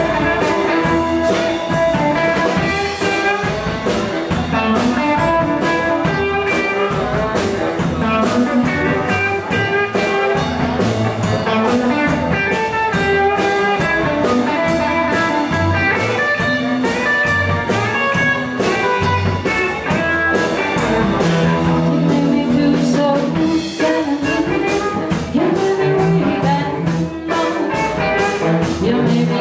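Live band playing a bluesy rock and roll number, led by electric guitar over a drum kit's steady beat.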